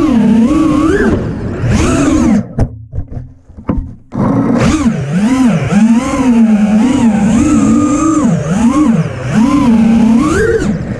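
Brushless motors and propellers of an FPV freestyle quadcopter (Xing 2306 1700kv motors), heard from the onboard camera, whining and wavering up and down in pitch with constant throttle changes. A little over two seconds in the throttle is cut and the whine nearly drops out for under two seconds, then comes back hard.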